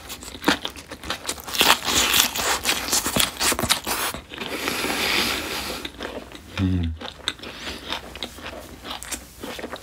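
Close-up chewing of a mouthful of smoked duck: dense crunchy clicks and wet smacking for the first four seconds, a steady breathy hiss for about a second and a half, a short low 'mm' hum about seven seconds in, then more chewing clicks.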